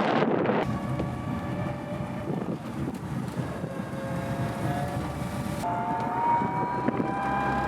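A small vehicle's motor whining steadily while riding, with wind noise on the microphone; the whine holds a few pitches that drift slowly and step up slightly near the end.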